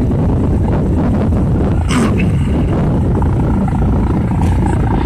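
Air ambulance helicopter, a Eurocopter EC135, approaching to land: its rotor and turbine engines make a steady low rumble.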